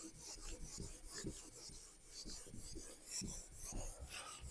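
Faint scratchy strokes of handwriting: a pen or marker dragged in short rapid strokes.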